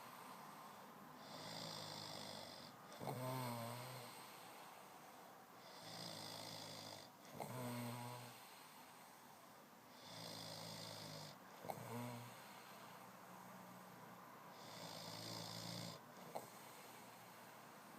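A man snoring hard in his sleep: a low, rattling snore on each breath, with a breathy hiss between snores, about one breath every four to five seconds.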